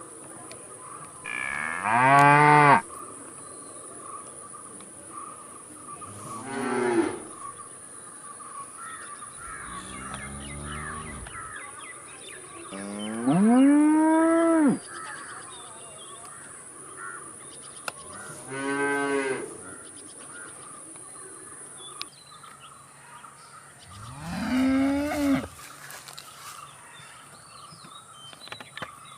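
Cows mooing: about six drawn-out moos, several seconds apart, the loudest near the start and about halfway through. A steady high-pitched insect-like hum runs underneath.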